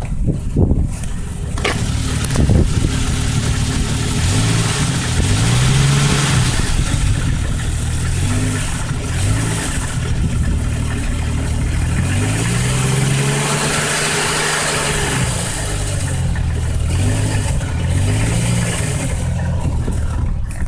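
1998 Jeep Cherokee 4.0 straight-six engine idling and being revved up and back down several times, the longest rev about halfway through. It has a knock that the owner suspects is rod knock.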